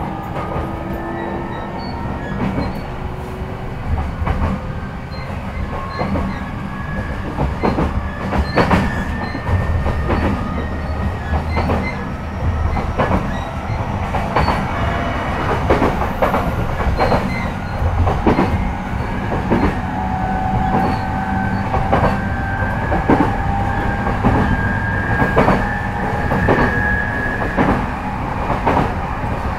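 Running sound of a JR East E233-5000 series electric train, heard from inside a motor car (MoHa E232). A steady rumble runs under a whine from the traction motors that rises slowly in pitch as the train gathers speed. From about a third of the way in, the wheels click over rail joints in a regular rhythm.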